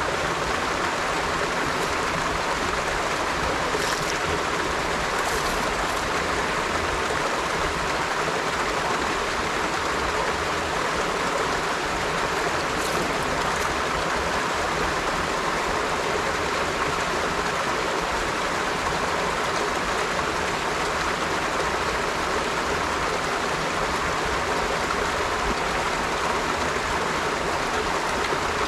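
River water flowing steadily, a continuous rushing burble with occasional small high splashes.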